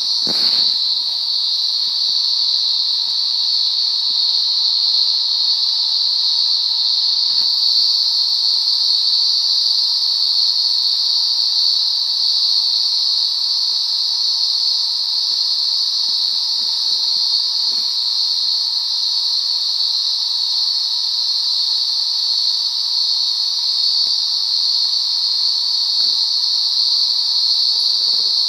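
Dense chorus of night insects: a steady high-pitched shrill that holds without pause, with a fainter, lower drone beneath it.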